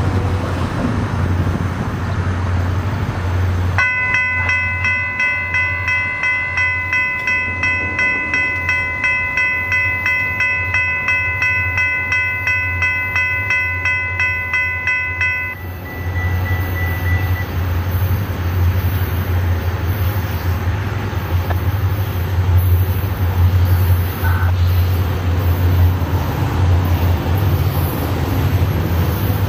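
Railroad grade-crossing warning bell ringing about twice a second, starting about four seconds in and cutting off after roughly twelve seconds, as happens when the crossing gates finish lowering for an oncoming train. Under it a steady low rumble runs throughout.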